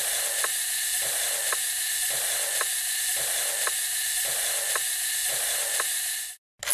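Logo-intro sound effect: a steady hiss with a sharp mechanical tick about once a second. It cuts off suddenly near the end, and a brief burst of noise follows.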